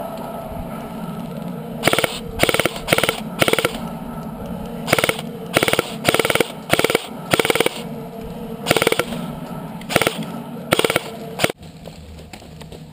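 Airsoft guns firing in about a dozen short rapid bursts, each a quick string of sharp clicks, a second or less apart at times; the firing stops suddenly near the end.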